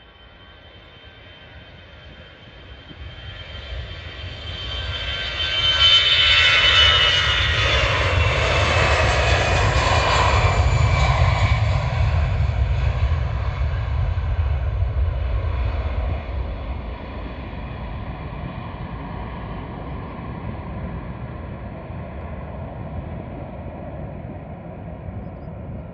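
Airliner taking off at full power: the engine noise builds over the first few seconds into a loud deep rumble with a high whine that slides down in pitch. It then fades slowly as the plane climbs away.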